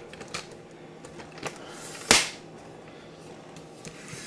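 Camera tripod being undone by hand: handling noise with a few small clicks and one sharp snap about two seconds in.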